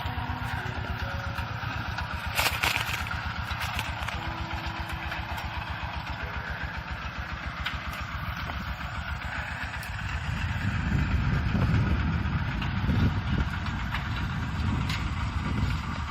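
Kubota tractor's diesel engine running with a steady, rapid chug, with a short knock a couple of seconds in. From about ten seconds in the engine note turns deeper, rougher and louder.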